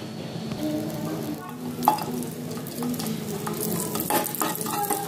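Ghee melting in a hot kadhai and starting to sizzle, while a metal spatula stirs it round the pan with scrapes and light ticks of metal on the pan. The sizzle thickens from about a second and a half in.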